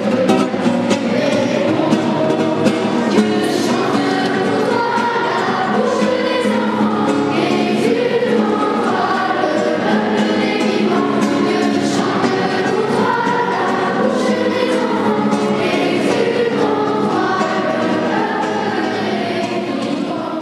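Background music: a choir singing a song, steady throughout and beginning to fade out near the end.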